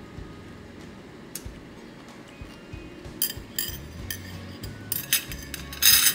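Metal chopsticks clinking against a ceramic plate: scattered clinks from about halfway, quickening, then a louder clatter near the end as they are set down on the plate.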